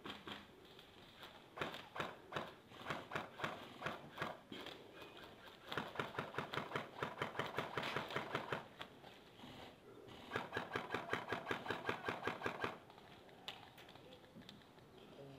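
Airsoft guns firing: scattered short bursts, then two long strings of fast, evenly spaced shots, each lasting a couple of seconds, in the second half.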